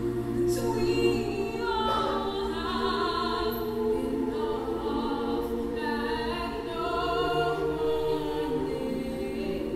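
Mixed youth choir of girls' and boys' voices singing in several parts, holding sustained chords that move together every second or so.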